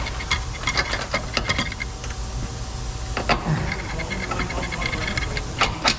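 Metal clinks and knocks as a lower control arm and its bolt are worked into place on the car's front suspension. A thin steady whine comes in twice underneath.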